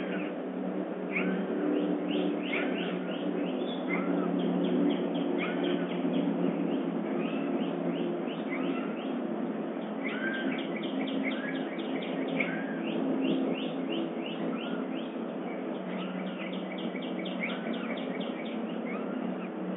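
Wild birds singing in a dawn chorus: an arched whistled note repeated about every second and a half, and quick runs of down-slurred chirps, over a steady low hum.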